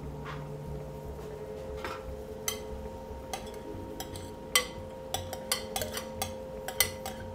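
Metal spoon clinking and scraping against a glass bowl and the rim of a steel pot as grated carrot is tipped in: a quick run of sharp clinks starting about two and a half seconds in, over a steady hum.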